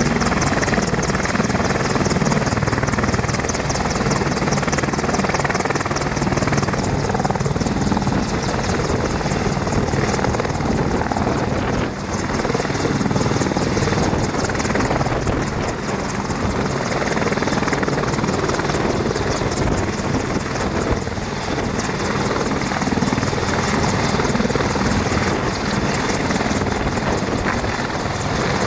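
AH-64 Apache attack helicopter, with its twin turboshaft engines and main rotor running at flight power and a fast, even rotor beat. It moves across the ground and lifts into a low hover near the end.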